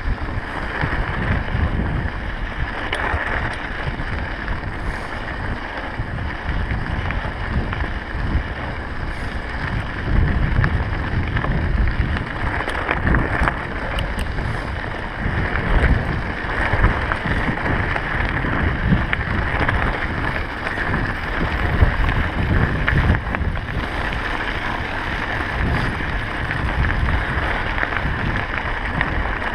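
Wind buffeting the microphone over the steady crunch and rumble of mountain-bike tyres rolling on loose gravel.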